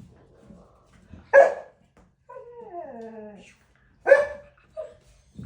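A dog barks once, then gives a long whine that falls in pitch, then barks again and follows it with a short yip.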